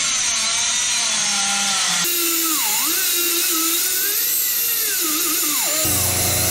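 Small angle grinder with a cutoff wheel cutting through the outer race of a cylindrical (flat) roller wheel bearing pressed on a Dana 44 rear axle shaft. The motor's pitch sags and recovers as the wheel bites under load, then settles to a steady pitch near the end.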